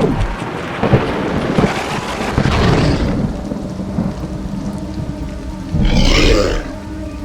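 Thunderstorm sound effect: thunder rumbling over rain, dying down midway, with a short, louder burst about six seconds in.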